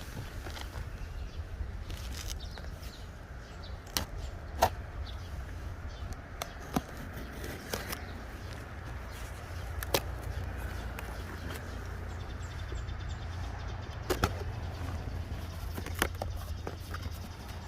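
Camping gear being handled during tarp pitching: scattered sharp clicks and knocks, about six of them, over a steady low rumble.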